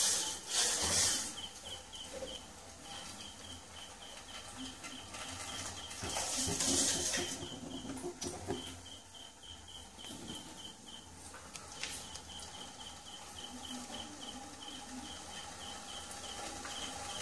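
A cricket chirping steadily, about three chirps a second, under faint room noise. Rustling handling noise comes near the start and again about six seconds in.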